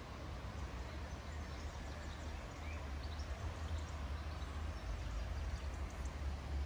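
Outdoor ambience: a low, uneven rumble of wind on the phone's microphone, with faint, short bird chirps from about a second in.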